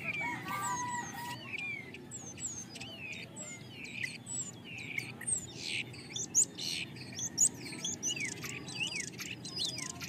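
A flock of birds chattering as they settle into a roost tree at dusk: many overlapping short chirps and whistles, many sliding down in pitch, with two louder sharp calls past the middle.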